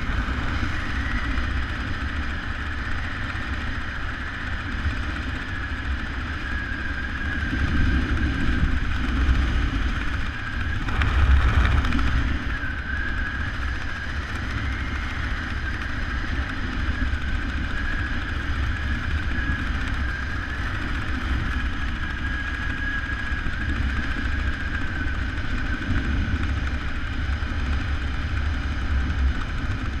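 Wind rushing over a helmet camera's microphone during a descent under an open parachute: a steady low rumble with a faint wavering high whistle, swelling louder about eleven seconds in.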